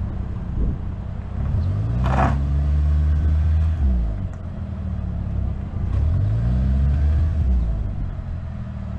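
Manual-transmission car's engine revving up and holding twice, dropping back in between, as the driver slips the clutch on a slope hunting for the bite point. A short hiss about two seconds in.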